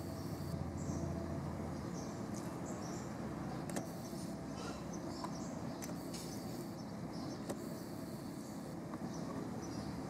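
Backyard ambience: a steady low background rumble with faint, scattered high bird chirps over it.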